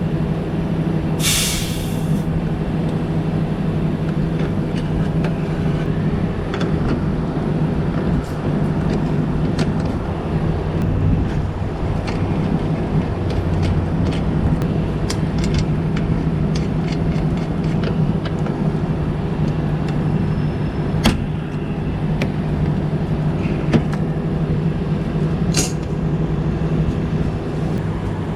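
An inverter split air conditioner's outdoor unit runs with a steady hum. About a second in, a short hiss of R410A refrigerant escapes as the charging hose is unscrewed from the service port. A few light clicks come later.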